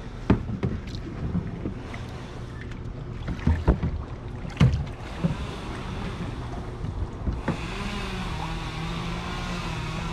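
Steady, slightly wavering hum of a motorboat engine out on the water. It fades out soon after the start and comes back about seven and a half seconds in. In between come a few sharp knocks and thumps against water and wind noise, the loudest near the middle.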